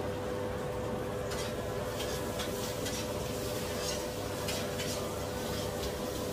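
A cooking utensil stirring and scraping in a pot, with a handful of short scrapes starting about a second in, over a steady hum.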